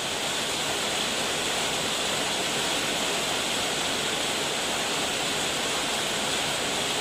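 Steady rain falling on foliage, an even hiss.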